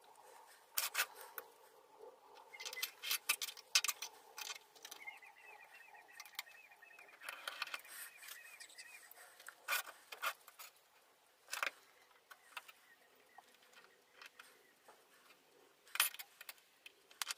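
Cut aluminium bar pieces and small hand tools clinking and knocking on a workbench as they are picked up, shifted and set down: scattered sharp clicks, loudest about four seconds in and again near the end.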